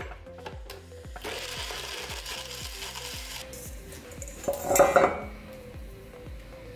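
Kitchen handling sounds: a blender jar being handled and set down with a couple of seconds of scraping. A stainless steel mixing bowl clatters loudly as it is set down about five seconds in. Light background music runs underneath.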